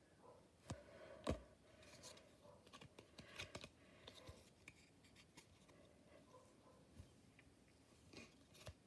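Faint scattered clicks and scratchy rustles of small cards and packaging being handled, with two sharper clicks in the first second and a half.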